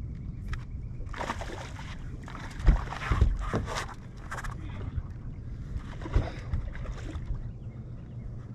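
A hooked bass splashing at the surface beside a fishing boat as it is landed, in bursts, with two sharp knocks on the boat about three seconds in.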